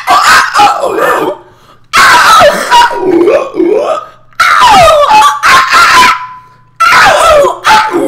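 Loud yelping, squawking vocal cries in short bursts that slide up and down in pitch, with brief pauses in between.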